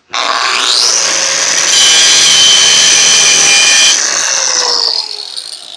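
Electric angle grinder spinning up to a high whine, then grinding on thick steel for a couple of seconds, loud and rough. It is switched off and winds down with a falling pitch.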